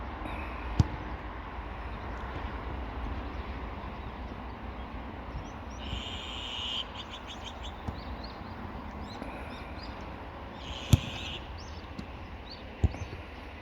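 A football being kicked: three sharp thuds, one about a second in and two near the end, over steady wind rumble on the microphone. Two short high trilling sounds and a few faint chirps come in the middle.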